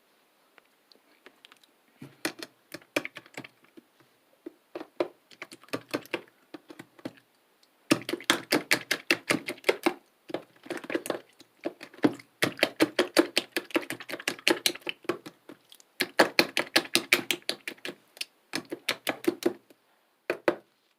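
Clear, bubble-filled slime being pressed and squished by hand, giving runs of rapid crisp clicks and pops, about ten a second, in several bursts with brief pauses between.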